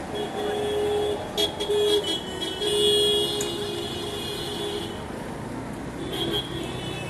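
Vehicle horns honking in street traffic: a string of short and longer honks in two slightly different pitches through the first five seconds, another brief honk near the end, over steady traffic noise.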